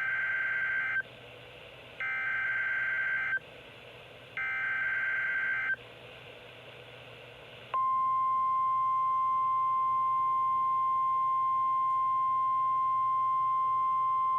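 NOAA Weather Radio Required Weekly Test: three SAME digital header bursts, each a raspy data screech about a second long with about a second between them, then about eight seconds in the steady 1050 Hz Weather Radio warning alarm tone begins and holds.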